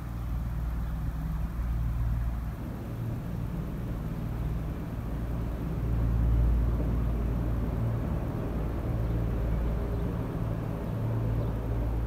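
A low steady rumble with a faint hum in it, fairly loud and slightly swelling about six seconds in.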